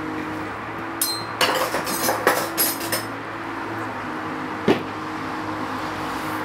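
A steel table knife clinks and clatters against the table and crockery several times, the first contact with a brief metallic ring. A single sharp knock follows later.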